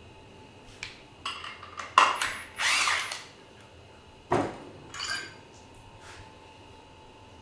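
Metal parts clanking and clattering as they are handled and set down on a workbench, then a cordless drill whirring briefly, about two and a half seconds in. A sharp clank follows a couple of seconds later, then lighter clatter.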